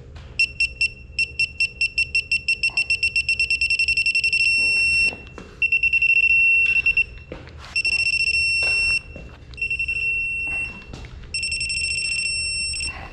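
ACDelco digital torque adapter beeping as a head bolt is pulled up to its 105 ft-lb setting. Its short high beeps come faster and faster until they merge into a steady tone at the target torque, and four more long steady tones follow as further bolts are brought to torque.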